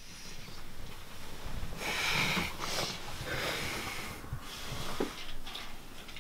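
A person waking in bed: noisy breaths and sniffs mixed with rustling of bedding and clothes as he sits up, loudest about two seconds in.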